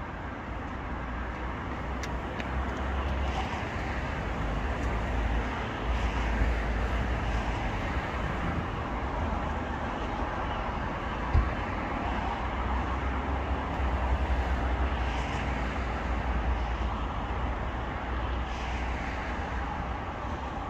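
Steady hum of road traffic, with a low rumble that swells and fades and a single low thump about halfway through.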